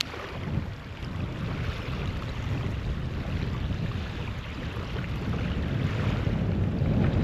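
Outdoor wind buffeting the microphone, a rough, fluttering low rumble that grows somewhat stronger toward the end.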